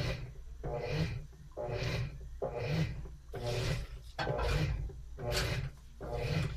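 Washing machine agitating a load, its motor driving the wash back and forth in an even swishing rhythm of a little under one stroke a second.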